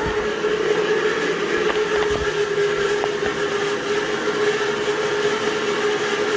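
Antique 1931 Gilbert electric fan running with a steady whining hum over the rush of its air, the odd noise it makes.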